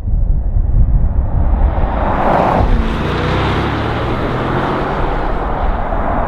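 2022 Range Rover driven hard along a winding road: a steady low engine rumble with road and wind noise that swells about two seconds in, and an engine note that dips in pitch around three seconds in.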